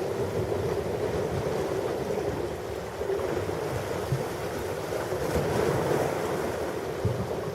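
Ocean surf: a steady, continuous wash of waves, swelling a little past the middle, with low gusts of wind rumbling on the microphone.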